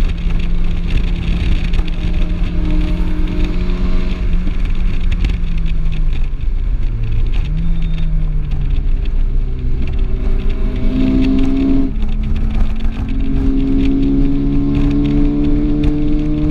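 Cabin sound of a Volkswagen Golf R's turbocharged 2.0-litre four-cylinder under track driving, over road and wind noise. It holds steady revs, drops in pitch about six seconds in as the car slows for a corner, with a brief rise near eight seconds. It then climbs in pitch under acceleration, breaks off about twelve seconds in at a gear change, and climbs again.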